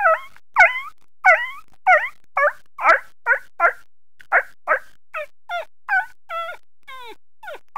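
A person imitating a young dog: a quick run of about seventeen short yelping barks, each sliding down in pitch, two or three a second.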